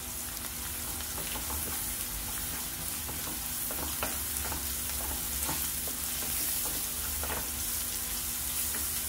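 Sliced onions and curry leaves sizzling steadily in hot oil in a pan, with a spatula stirring and scraping now and then.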